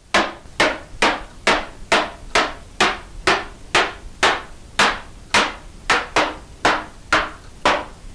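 Soft-faced mallet striking a cherry carcass, driving its dovetail joint together: steady, even blows, about two a second.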